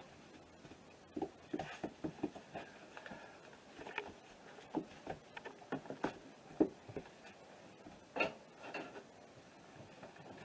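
Faint, irregular soft knocks and rustles, a few a second, in a small room.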